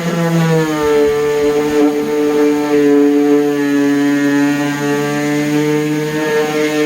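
DeWalt palm orbital sander running with a 3M Xtract Cubitron II disc, sanding cedar wood: a steady motor hum and whine whose pitch shifts slightly about half a second in, then holds.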